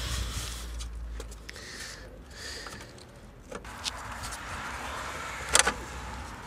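Scraping and rustling from a car-intake heat shield being worked down into place in an engine bay, its plugs pushed into rubber grommets, with a few small clicks and one sharp knock about five and a half seconds in.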